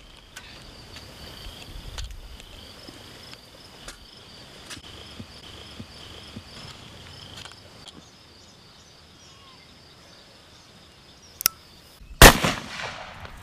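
Crickets and other insects trilling steadily at dusk, with a few faint clicks. Near the end, a sharp click is followed by a single loud gunshot that rings off with a short echo.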